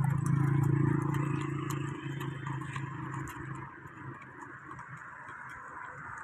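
Street traffic: a vehicle engine's steady hum that fades away over the first few seconds, under a haze of road noise with scattered faint clicks.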